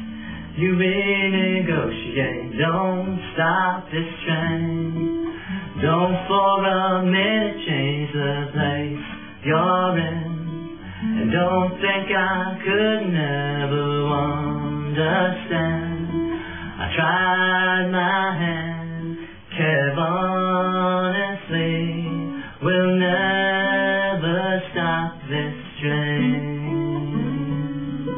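A man singing a song while strumming an acoustic guitar.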